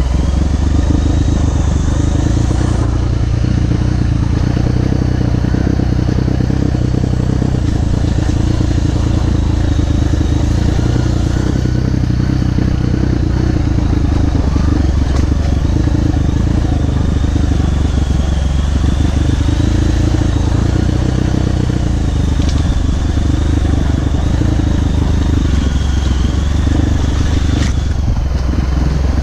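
Off-road motorcycle engine running steadily at low revs on a downhill trail, with a wavering high whine and a couple of sharp knocks in the second half.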